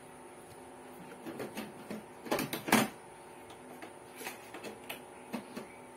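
Handling noises on a workbench: scattered light clicks and knocks as a circuit board and tools are moved, with two louder knocks close together about two and a half seconds in, over a faint steady hum.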